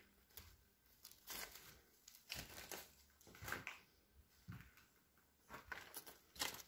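Faint footsteps crunching over plaster rubble and broken debris, a short crunch roughly once a second.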